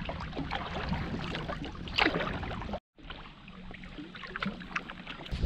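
Canoe paddling: paddle strokes splashing and dripping in the lake water, with a louder splash about two seconds in. The sound cuts out for an instant just before three seconds.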